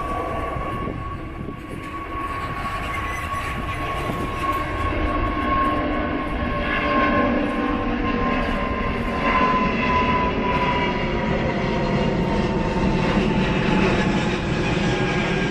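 Jet airliner engines passing close. A steady whine slowly falls in pitch over a deep rumble that grows louder through the second half.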